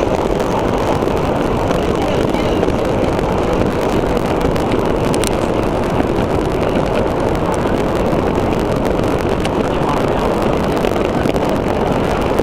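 Steady, loud rumbling roar of a fireworks display heard from within a crowd, with faint crackling and crowd voices mixed in; no single bang stands out.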